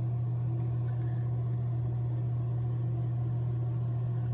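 A steady low hum that runs unchanged, with a faint even hiss above it.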